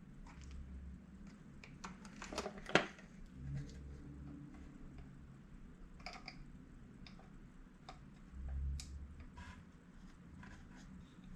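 Faint clicks and taps of small plastic parts being handled and fitted as a radio-control transmitter's case is put back together, with a burst of clicks and one sharper click about three seconds in.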